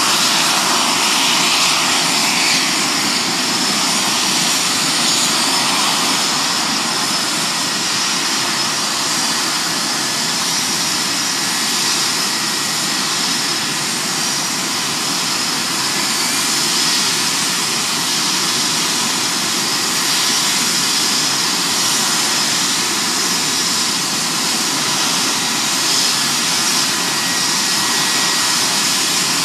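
Swedish JAS 39 Gripen's Volvo RM12 turbofan idling on the ground: a steady rushing noise with a thin, constant high whine over it.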